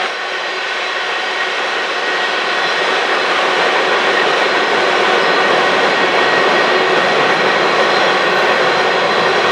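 Covered hopper cars of a Union Pacific grain train rolling across a stone bridge: a loud, steady rolling noise of steel wheels on rail, with a faint high ringing.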